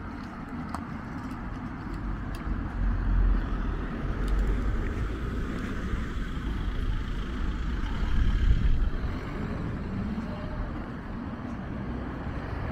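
Street traffic: a car driving past on the road, heard as a low noisy rumble that swells for several seconds and then eases off.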